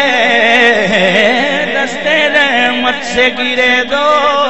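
Male naat reciter singing a long wavering, melismatic phrase through a public-address system, over a steady low drone.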